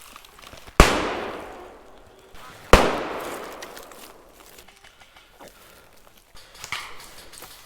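Two loud bangs of 40 mm airsoft grenade rounds going off, about two seconds apart, each echoing and fading away over a second or more. Faint clicks come between them.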